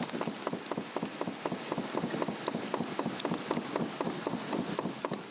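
Swedish torch, a dried cedar log with a cross-shaped cut, burning and crackling with dense, irregular pops several times a second over a soft hiss of flame.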